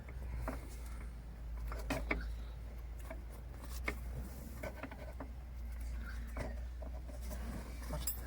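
Scattered light clicks, taps and rubbing of the shifter mount and rubber boot being pushed and worked into place by hand, over a steady low hum.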